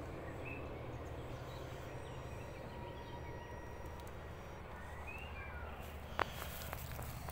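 Quiet outdoor ambience: a low steady hum with a couple of faint bird chirps, and a sharp click about six seconds in.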